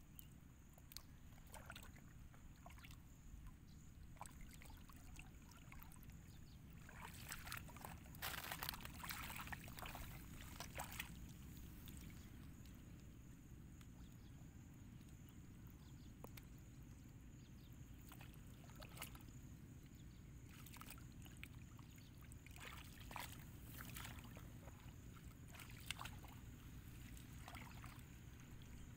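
Splashing and sloshing in shallow muddy water as hands and legs move through it and grab fish. There is a busy spell of splashes about eight to eleven seconds in and a few brief ones later, over a faint low steady rumble.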